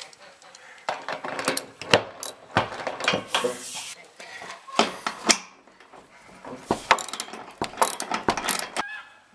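Socket ratchet wrench clicking in short, irregular runs as it tightens a bolt through a steel sliding-door rail bracket.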